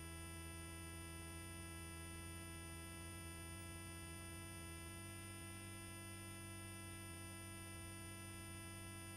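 Faint, steady hum made up of several fixed tones that do not change in pitch, as heard on a helicopter's headset intercom line while no one is talking.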